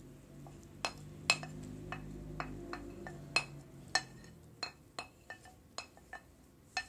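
Wooden spoon knocking and scraping against a plate and a nonstick frying pan while grated apple is scraped off into the pan: an irregular run of sharp clinks and taps with a short ringing.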